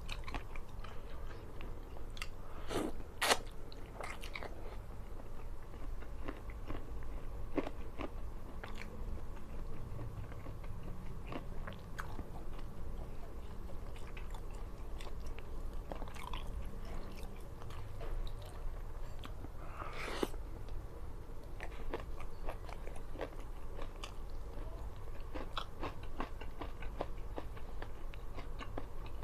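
A person eating: wet chewing with frequent crisp bites and crunches, the sharpest crunch about three seconds in and another about twenty seconds in.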